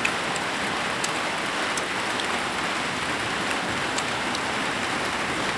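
Steady rain falling, an even hiss with a few faint ticks scattered through it.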